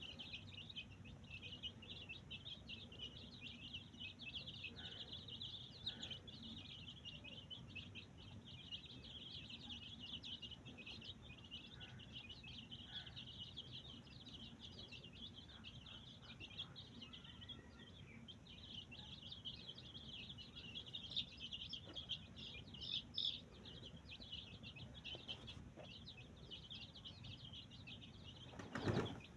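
Many small birds chirping together in a dense, continuous high twitter, with a single thump near the end.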